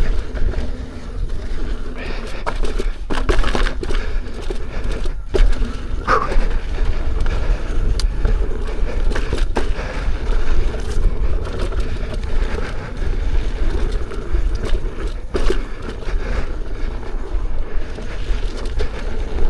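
Electric unicycle ridden fast over a rough dirt trail: a steady low rolling rumble from the tyre and ride, with a few sharp knocks as it hits bumps and rocks.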